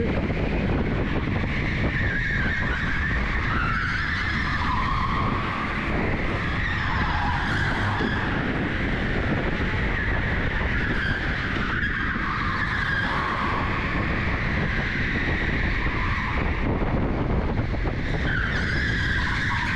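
Onboard sound of an electric go-kart at speed: a steady rumble from the tyres and chassis on the concrete track, with a whine that rises and falls as the kart speeds up and slows through the corners, and tyres scrubbing.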